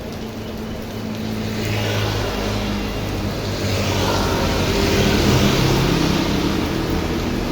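A motor vehicle passing on a wet road in heavy rain: a low engine hum and tyre spray build up over the rain about a second or two in and are loudest around the middle.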